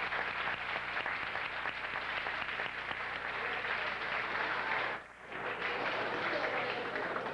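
Arena crowd applauding steadily. The sound drops out for a moment about five seconds in, then returns.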